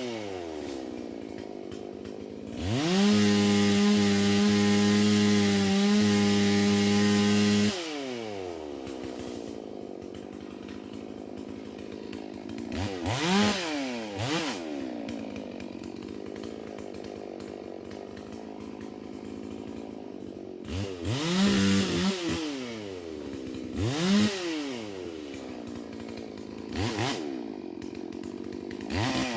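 Holzfforma G444 two-stroke chainsaw: it drops to idle, then is held at full throttle for about five seconds. After that it idles, with several quick throttle blips that rise and fall back.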